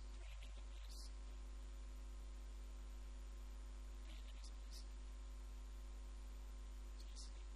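Steady electrical mains hum with a strong low tone and a set of fixed higher overtones. Faint snatches of a man's voice come through a few times: near the start, about four seconds in, and near the end.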